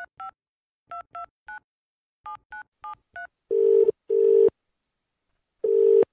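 Touch-tone telephone keypad dialing a number: nine quick two-tone beeps in three short groups. Then the ringback tone on the line rings twice in a double-ring pattern as the call rings out unanswered.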